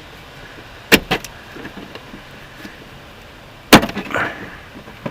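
Sharp knocks of hand tools striking metal while prying at the transmission's solenoid pack wiring connector: three quick knocks about a second in, then a louder knock near four seconds followed by a brief clatter.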